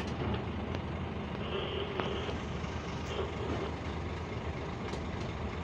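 Scania P440 dump truck's 13-litre six-cylinder diesel running steadily, heard from inside the cab as a low, even drone, with a few light clicks and rattles from the cab.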